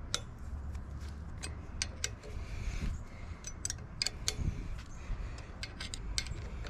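Irregular light metallic clicks and clinks of a hex key working the stem bolts of a BMX as they are tightened.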